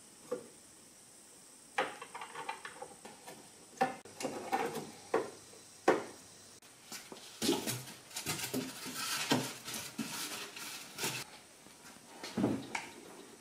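Hand-tool work and parts handling: scattered clicks, knocks and light clatter of metal and hard plastic, with a busier stretch of clatter about halfway through.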